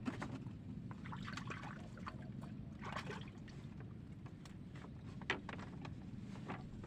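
Water sloshing and splashing, with a couple of sharp knocks, over a steady low hum.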